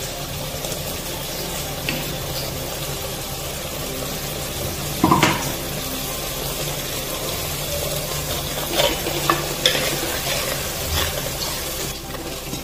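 Onion-tomato curry base frying in a pan as a steel spoon stirs it, with a steady sizzle under the scraping. The spoon knocks against the pan a few times, loudest about five seconds in and again several times near nine to ten seconds.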